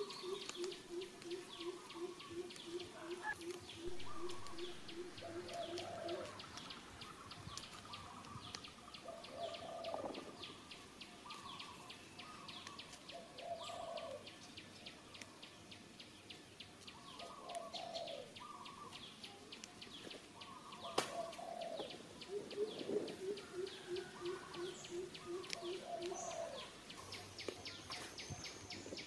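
Birds calling outdoors. A low hooting note repeats about three times a second in two runs, one at the start and one near the end, among shorter higher calls and a fast faint ticking. A single sharp click sounds about 21 seconds in.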